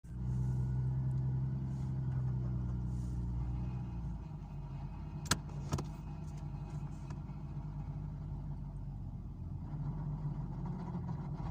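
Nissan Skyline R33 GT-R's RB26 twin-turbo straight-six idling. About four seconds in, the steady hum changes to a rougher, quieter tone, and two sharp clicks follow a little over a second later.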